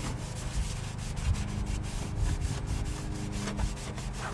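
A cloth wiping and scrubbing the car's interior surfaces in a fast run of short, scratchy rubbing strokes.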